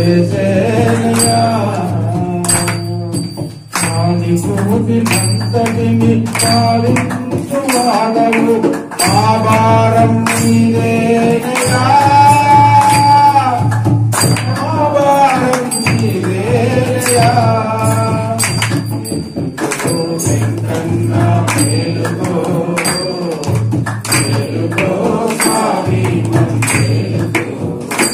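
A man sings a devotional song through a microphone and loudspeaker, with long held and gliding notes, over a steady low drone. Short ringing metallic clinks, like small hand cymbals, keep time about once a second.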